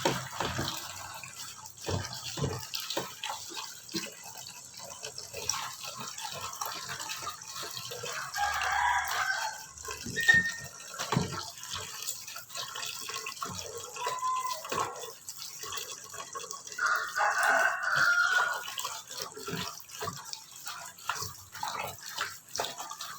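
Pandan leaves being washed by hand under running water, with splashing, drips and short knocks. A rooster crows twice in the background, about a third of the way in and again about three quarters through.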